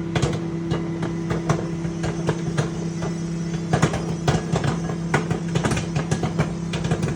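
Popcorn popping inside a running microwave oven: irregular sharp pops, sometimes several close together, over the oven's steady hum.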